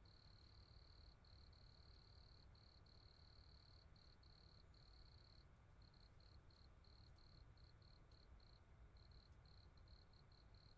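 Faint high insect trill, like a cricket's. It runs in long stretches with brief gaps, then about halfway in breaks into short chirps, roughly three a second, over a low background rumble.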